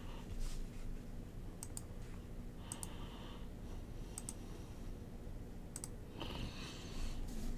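Computer mouse clicking a few times, several of them quick double clicks, with two short soft brushing sounds between them.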